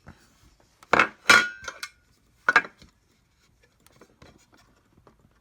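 Small metal camp-kit pieces clinking against each other as they are handled: three sharp clinks about a second in, just after, and near the middle, one ringing briefly, then a few faint clicks.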